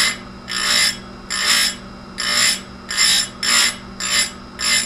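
Hand file rasping against a chainsaw chain in steady strokes, about seven of them, roughly one-and-a-half a second, over a steady low hum.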